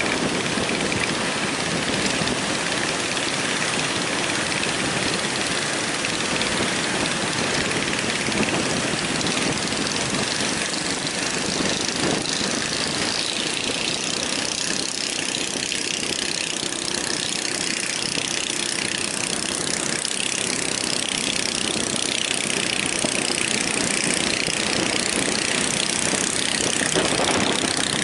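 Heavy surf breaking, a steady rush of noise that stays at an even level throughout.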